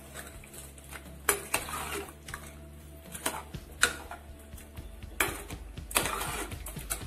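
Steel spoon stirring a thick curry in a steel pressure-cooker pot, clinking and scraping against the pot's sides at irregular moments, about seven times.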